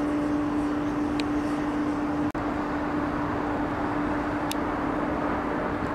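A train running steadily: a constant mid-pitched hum over a wash of mechanical noise.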